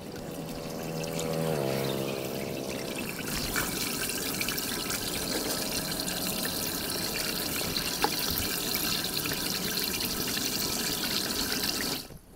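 Water pouring steadily down through a storm drain grate as leaves blocking it are cleared by hand. A pitched hum drops in pitch in the first couple of seconds.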